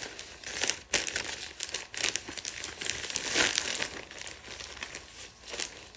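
Plastic packaging crinkling and rustling in irregular bursts as clothing is handled, loudest about three and a half seconds in.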